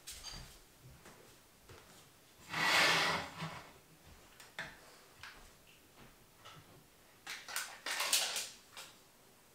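Household handling noises: a scraping rush lasting about a second, then scattered faint ticks, and near the end a quick run of clatters and scrapes as things are handled at a kitchen counter.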